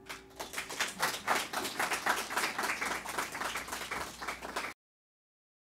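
Audience applause, many people clapping at once, which cuts off abruptly near the end.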